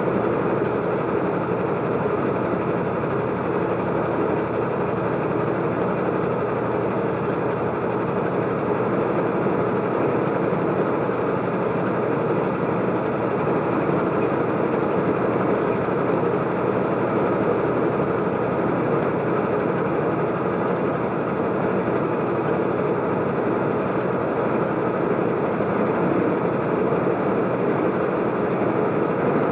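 Steady engine and road noise inside a vehicle's cab cruising at highway speed, even and unchanging throughout.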